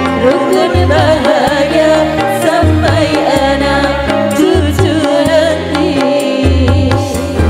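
Live qasidah modern band: a woman sings the lead with wavering, ornamented turns over keyboards, bass notes and hand-drum percussion.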